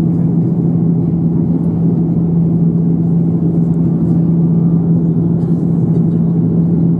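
Steady cabin drone of an Airbus A330-300 in flight, heard from a window seat over the wing: engine and airflow noise with a constant low hum.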